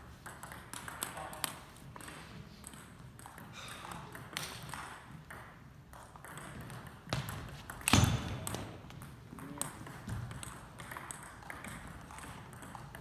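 Table tennis ball clicking against paddles and the table in a series of quick sharp ticks, with one much louder knock about eight seconds in.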